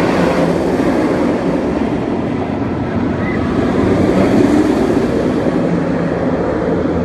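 Inverted steel roller coaster train running along its track: a loud, steady rumble of wheels on steel rails.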